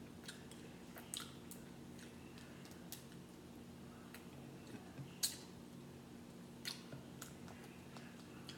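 Boiled seafood shells being cracked and peeled apart by hand: a scattering of small sharp cracks and clicks, the loudest a little over five seconds in, over a faint steady hum.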